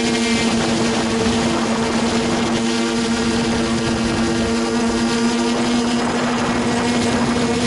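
A quadcopter's four 880Kv brushless motors spinning 9-inch propellers in flight, heard up close from on board: a steady buzzing hum made of a few held tones over rushing air noise.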